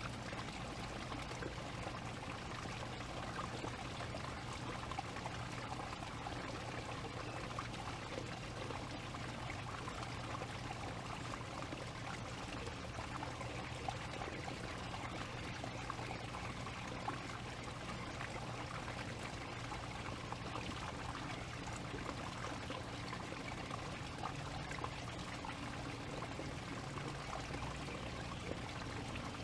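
Steady noise of running, trickling water with fine crackles, over a faint steady low hum.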